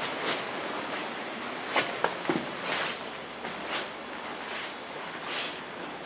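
Slow footsteps, about one a second, over a steady background hiss.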